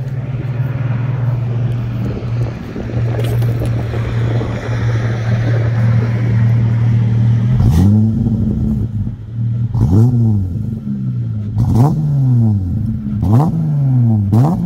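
Dodge Charger's engine just after a cold start, idling high and steady through the exhaust, then revved in about five quick throttle blips, each climbing sharply and dropping back to idle.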